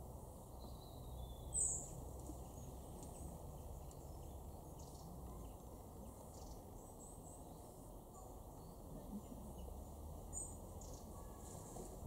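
A few brief, high-pitched calls from small woodland songbirds. The clearest comes about a second and a half in and another near the end, over faint steady low background noise.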